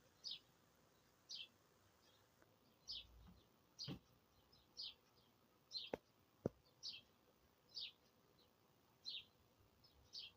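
A single bird repeating a short, high, falling call about once a second, faint against a quiet background, with two or three sharp clicks around the middle.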